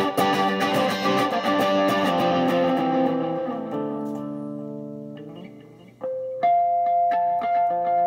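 Electric guitar played through a Bad Cat Cub III amp with overdrive, delay and reverb. A wash of ringing chords fades out over about five seconds, then single high notes start ringing out near the end.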